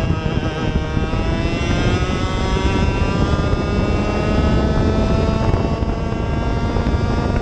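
Racing kart engine at full throttle, its pitch climbing steadily as the kart accelerates down a straight, with wind buffeting the onboard microphone.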